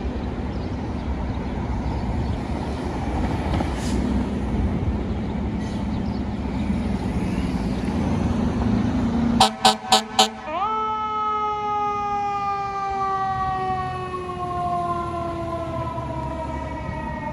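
FDNY fire engine pulling out: its diesel engine rumbling, then four short horn blasts about nine and a half seconds in, followed by its siren, whose pitch jumps up and then slowly falls.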